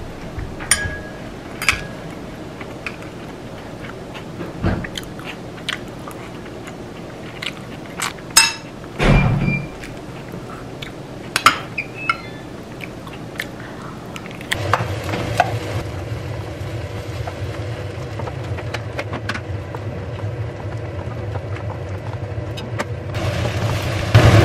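Metal spoon clinking and scraping against a ceramic bowl as kimchi fried rice is scooped and eaten, in scattered sharp clicks, with a louder low thump about nine seconds in. A steady low hum joins a little past halfway.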